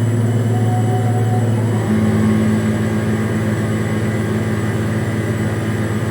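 Offshore platform crane's engine running with a steady low drone. Its hum shifts slightly about two seconds in.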